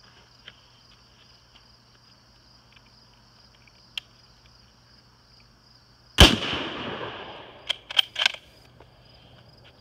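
A single shot from a Ruger Gunsite Scout bolt-action rifle in .308, about six seconds in: loud, with a long echoing decay. About a second and a half later comes a quick run of sharp clicks as the bolt is worked.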